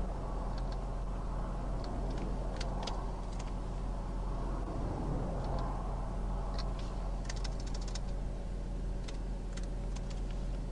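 Steady low hum of a stopped patrol car's idling engine. Passing highway traffic swells up and fades twice. Scattered light clicks run through the middle, like typing on a keyboard.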